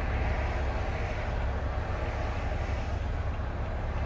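BMW 335i's turbocharged N55 inline-six with a full-bolt-on exhaust cruising at a steady pace, heard inside the cabin: a steady low exhaust drone mixed with road and tyre noise.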